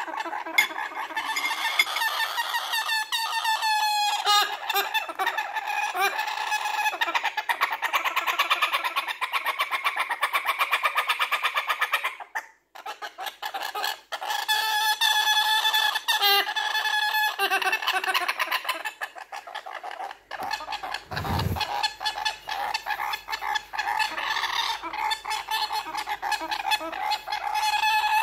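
Young galah calling continuously in rapid, rhythmic rasping pulses while being syringe-fed, the food-begging call of a baby galah. The calling breaks off briefly about twelve seconds in, and there is a dull bump about two-thirds of the way through.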